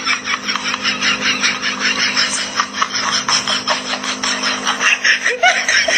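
Kittens suckling at their mother: a fast, even run of wet smacking clicks, about six a second.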